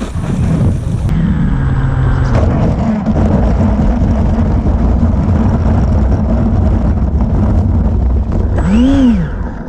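Electric ducted fan jet of an RC model running, a steady hum under heavy wind rumble, with a quick rise and fall in pitch near the end.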